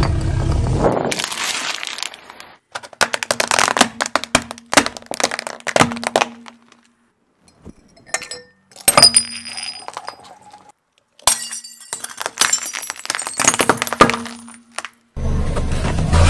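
Glass soda bottles and a drinking glass cracking and crunching under a slowly rolling car tyre, in several runs of sharp cracks. A car's low rumble is heard in the first second and again near the end.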